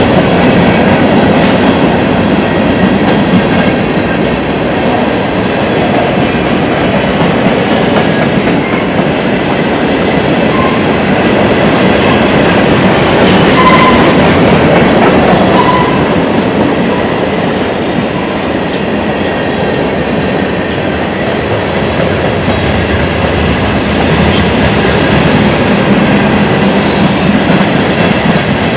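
Mixed freight train of boxcars, centerbeam flatcars and tank cars rolling past at close range: steel wheels running loudly and steadily over the rails.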